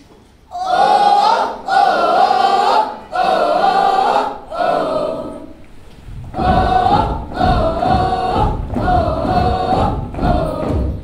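A chorus of schoolchildren's voices singing a tune in long held phrases. After a short break about halfway through, the singing resumes with regular thumps of feet stamping on a stage.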